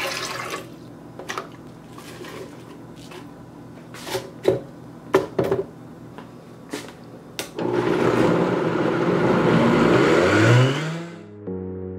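Water pouring into a blender jar, then several separate knocks as chunks of fruit and spinach drop in. About eight seconds in, a Vitamix TurboBlend VS blender starts blending, its motor rising in pitch as the speed dial is turned up, and the sound cuts off about three seconds later.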